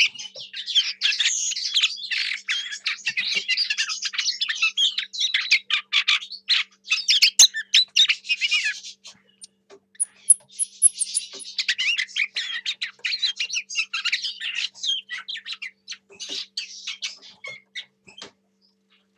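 Lesser whitethroat singing a long, rapid warble of short notes, with a brief break about nine seconds in.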